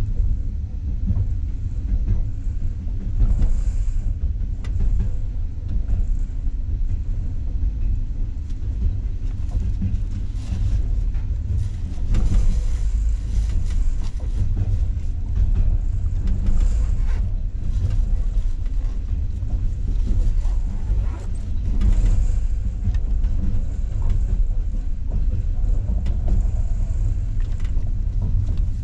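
Steady low rumble of a passenger train carriage rolling along the track, heard from inside the car, with scattered knocks from the wheels on the rails.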